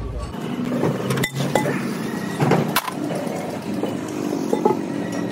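Metal clinks and knocks, some with a short ring, as a truck's rear brake drum is worked loose and lifted off its hub. Underneath runs a steady hum of engines and traffic.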